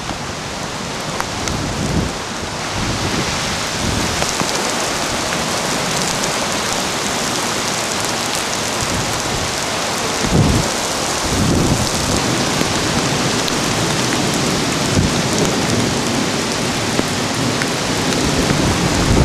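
Heavy rain of a severe thunderstorm pouring steadily, growing heavier a few seconds in. About halfway through, two short low rumbles of thunder stand out, the first the loudest moment.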